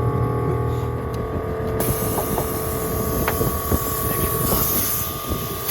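Portable air compressor running steadily, pumping the plugged fifth-wheel trailer tire up toward its high inflation pressure; a hiss joins it about two seconds in.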